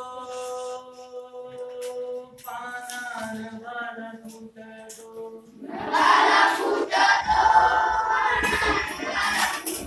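A man sings a line of a Marathi poem alone in long, held notes. Just before six seconds in, a class of schoolchildren sings the line back in unison, much louder, as call and response.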